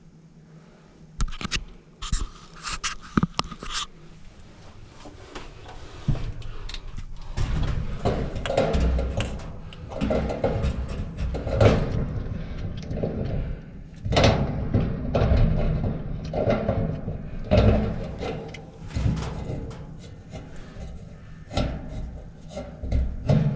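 Irregular clunks, knocks and scraping from hands handling dryer parts, a few light clicks first and then a busier run of heavier clunks from about six seconds in.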